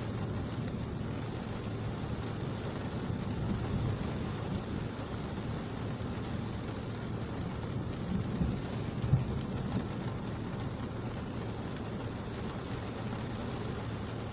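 Heavy rain falling on a car's windscreen and body, heard from inside the cabin, over a steady low engine hum. A couple of dull thumps come about eight to nine seconds in.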